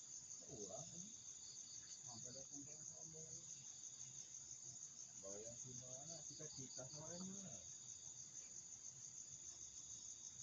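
A steady, high-pitched insect chorus trilling throughout. A second, pulsing trill comes in twice. Faint low voices murmur underneath for much of it.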